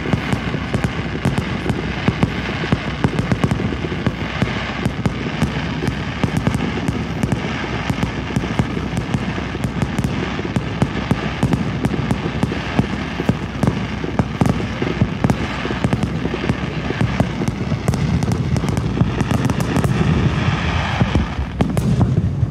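Fireworks crackling and popping, a rapid unbroken stream of many small bursts over a low rumble, growing a little louder near the end.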